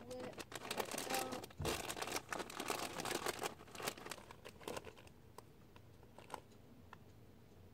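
A crinkly plastic bag being handled, rustling and crumpling in quick crackles. It is dense for about five seconds, then only a few scattered crackles.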